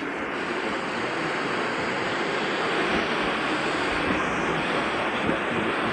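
Static from an AM radio, a steady rushing hiss with no clear programme audible, swelling up over the first second or so.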